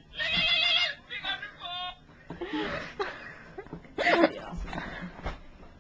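A cell phone ringtone plays through the phone's small speaker as a few high synthetic notes, then stops about two seconds in. Girls' laughter follows.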